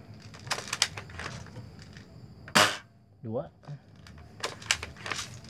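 Chinese-made spring-powered M16 airsoft rifle fired once, a single sharp snap a little past halfway, with plastic clicks from the gun being cocked before and after the shot.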